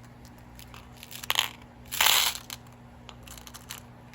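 Packaging rustled and crunched by hand in two short bursts, about a second and two seconds in, with a few light clicks between.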